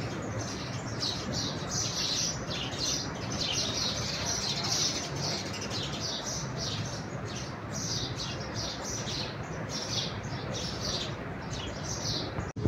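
Many small birds chirping continuously over a steady background noise.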